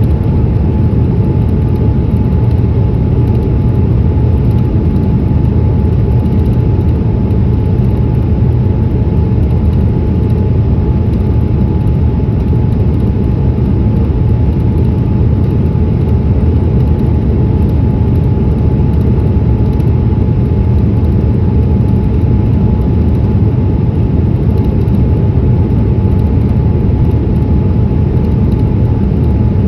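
Steady roar of a Boeing 787-8's engines and airflow on the approach to landing, heavy in the low end with a faint steady whine over it.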